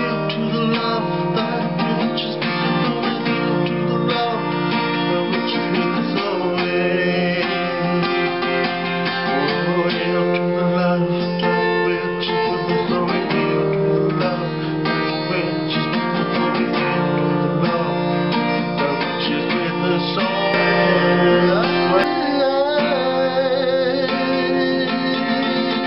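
Acoustic guitar strummed steadily, an instrumental passage of chords ringing over one another.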